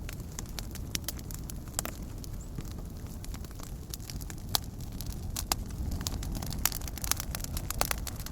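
Log fire crackling: frequent sharp pops and snaps over a steady low rumble.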